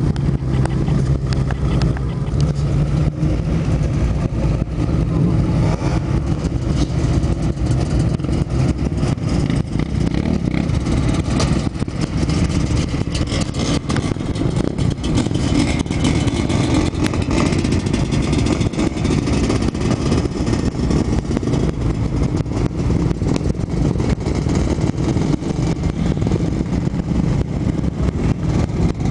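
Racing motorcycle and quad bike (ATV) engines running hard and revving, loud and without a break, with the pitch rising and falling.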